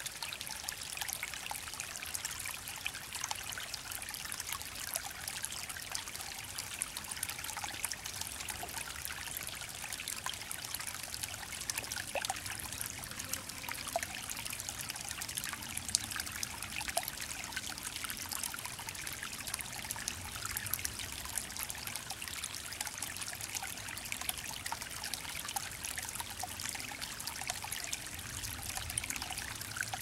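Shallow forest creek trickling over stones: a steady babble of running water with many small plinks and drips.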